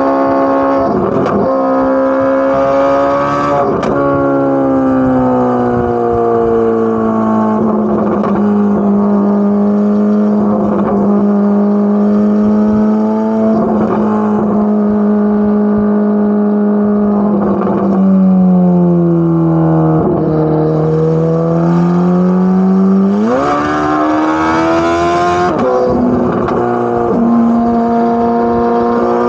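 Chevrolet Corvette C8 Z06's flat-plane-crank 5.5-litre V8 running under light throttle with a steady exhaust note. The note sags lower as the car slows, then climbs quickly as it accelerates and settles back to a steady cruise.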